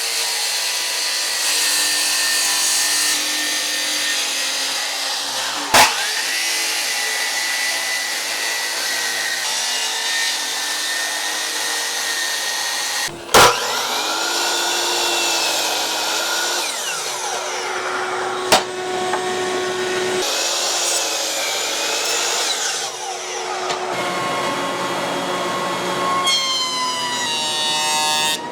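Woodworking power tools running and cutting rough maple boards, heard in a string of short clips joined by abrupt cuts. Motor pitch rises and falls as tools spin up and wind down, with a long falling wind-down near the end.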